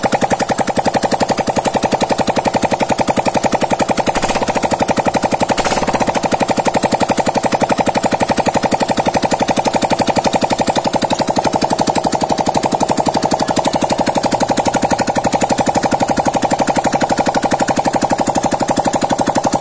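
Yamaha Mio M3 125 scooter's single-cylinder four-stroke engine running steadily with no exhaust fitted, a loud, rapid, even train of pops from the bare exhaust port. This is its first run after a new cylinder block and piston.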